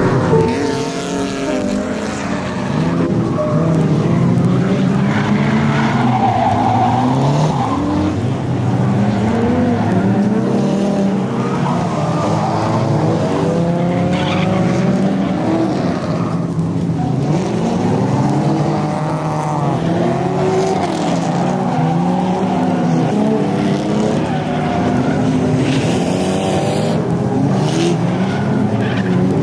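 Drift cars on track: engines revving hard and easing off again and again, several engine notes overlapping, with tyres squealing as the cars slide.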